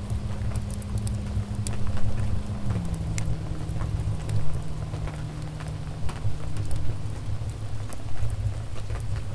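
Wood fire in a fireplace crackling: scattered sharp pops and snaps over a steady low rumble.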